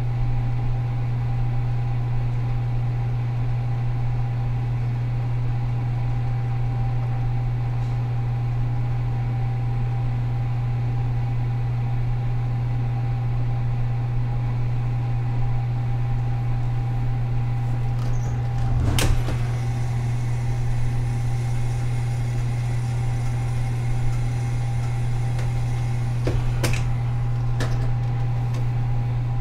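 Oven running with a steady low electrical hum and a fainter high tone. A sharp click comes about two-thirds of the way through, and two more near the end.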